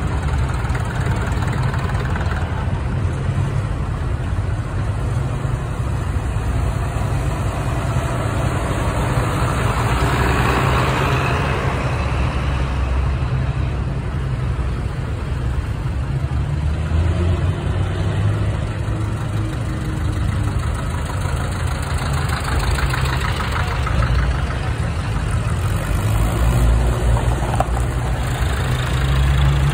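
Old tractor engines running as a line of vintage tractors drives slowly past, a steady low rumble that grows louder near the end as the next tractor comes close.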